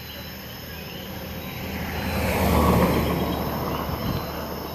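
A car driving past, its engine and tyre noise swelling to a peak a little under three seconds in and then fading away. Crickets chirp in the background.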